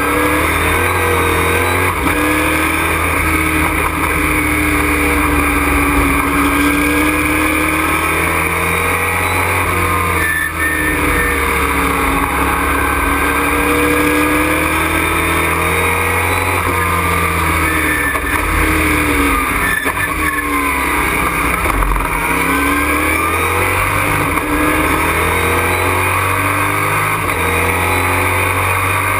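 Race truck's engine heard from inside the cockpit at racing speed, revs rising and falling again and again through the gears, with a brief drop about ten seconds in.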